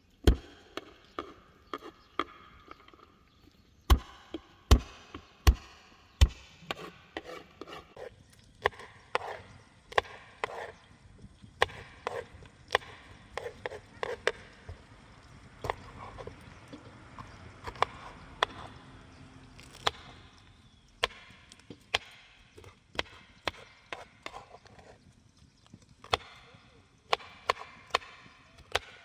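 Repeated chopping strikes on wood: irregular sharp knocks, one or two a second, with four heavier blows close together about four seconds in.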